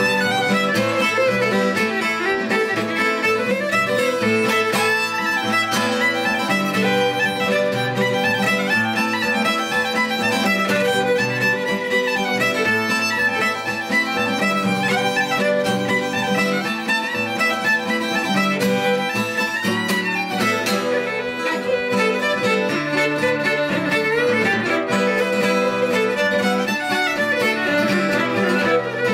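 Fiddle and acoustic guitar playing a Celtic reel, the fiddle carrying a run of quick melody notes over strummed guitar chords.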